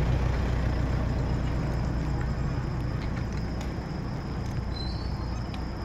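Low wind rumble on the microphone of a phone carried on a moving bicycle, easing slightly, with crickets trilling steadily in the background.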